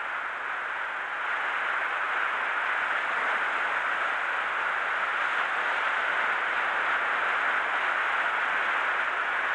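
Steady rushing hiss of surf washing onto a sandy beach, a little louder from about a second in.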